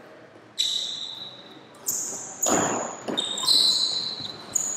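Badminton rally: rackets striking the shuttlecock several times in quick succession, each hit sharp and followed by a brief high ring.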